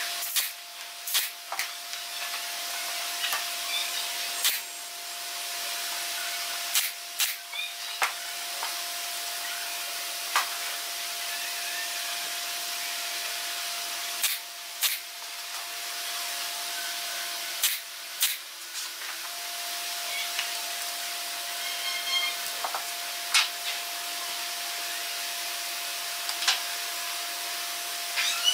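Pneumatic nail gun firing nails into the wooden roof frame: sharp single shots at irregular intervals, about fifteen in all, some in quick pairs. Under them is a steady hiss with a constant hum.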